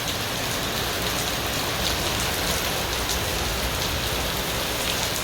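Heavy rain falling steadily, an even hiss of drops hitting the ground and surfaces around.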